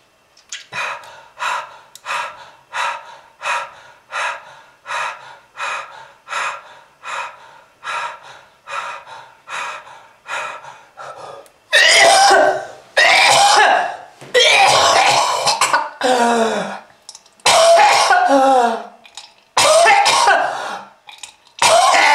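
A person coughing, in a smoker's cough: first a long run of short, evenly spaced coughs, about one and a half a second, then from about twelve seconds in, much louder, longer coughing fits with falling, strained voiced tones.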